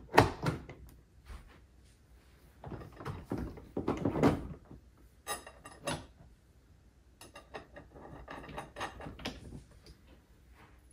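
Plastic parts of a kids' electric ride-on car, a wheel and its fittings among them, being handled and fitted by hand: scattered knocks, clicks and rattles in a few short clusters with quiet gaps between, the loudest knocks about four seconds in.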